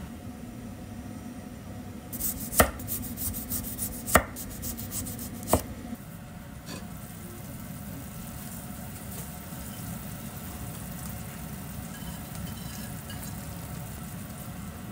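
A low, steady rush from a clay donabe pot heating on a gas burner, with three sharp knocks in the first six seconds, about two and a half, four and five and a half seconds in.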